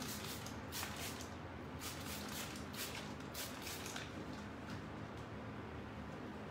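Hand-pumped trigger spray bottle spritzing water in quick short squirts, about two or three a second, onto wet paint so that it runs. The squirts fade to a few faint ones about four seconds in.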